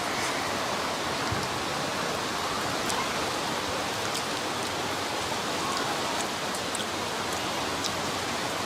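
Heavy rain falling: a steady, even hiss with scattered sharp ticks of individual drops.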